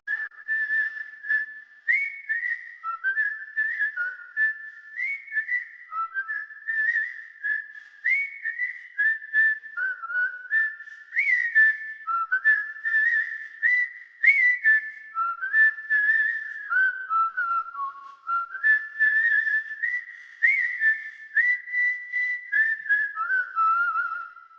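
A whistled tune, one clear line of notes stepping up and down, with faint short taps under it; it cuts off suddenly at the end.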